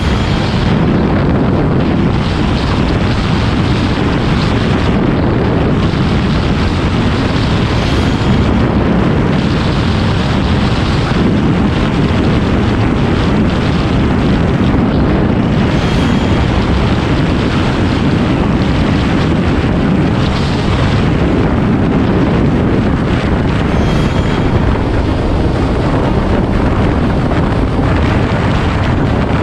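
Steady, loud wind rush over the camera microphone from riding a Honda CBR125R motorcycle at highway speed, with the bike's running engine and road noise blended underneath.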